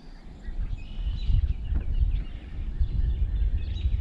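Wind buffeting the microphone in an uneven low rumble that starts about a third of a second in, with faint birds chirping behind it.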